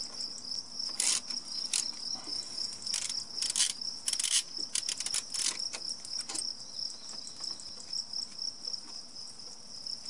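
Hand ratchet on a long extension clicking in short bursts as it works the valve cover bolts, the clicks dying away after about six seconds. Behind it, a steady high-pitched drone of insects.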